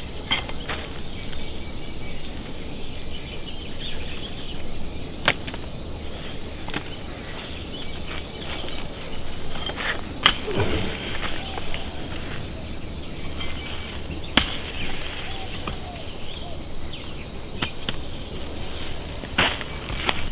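Insects chirring steadily and high, with a sharp knock every four or five seconds.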